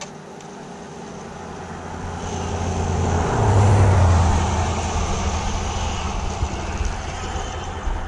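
A car passing close by on the road, its tyre and engine rumble swelling to loudest about three and a half seconds in, then slowly fading.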